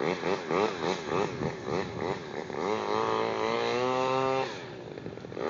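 Small engine of a radio-controlled model boat, heard from the bank, revving up and down several times in quick succession, then holding a steady high pitch for about two seconds before easing off near the end.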